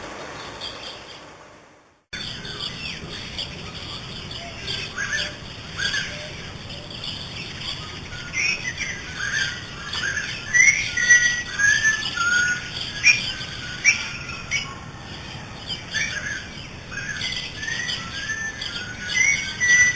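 Birds chirping and calling, many short, quick chirps and whistles overlapping, starting abruptly about two seconds in after an earlier sound fades out to silence.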